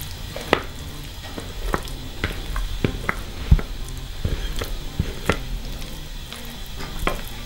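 Thick brownie batter being scraped out of a plastic mixing bowl with a metal whisk and dropped into a glass dish: irregular clicks and taps of the whisk against the bowls, with soft wet squelches of the batter.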